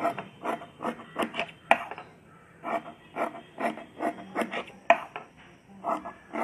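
Steel scissors snipping through thin cotton cloth, cutting strips in a quick series of short cuts, about two or three a second, with a few sharper clicks as the blades close and a short pause about two seconds in.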